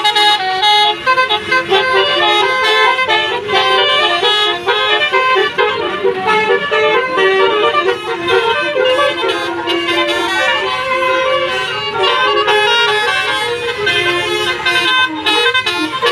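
Indonesian 'telolet' bus horn, a set of musical air horns, playing a quick tune of changing notes without a break.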